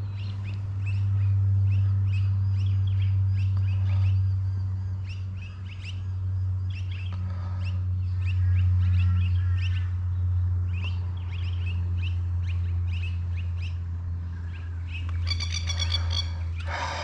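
Small birds chirping in short, repeated calls over a steady low hum, with a louder, denser call near the end.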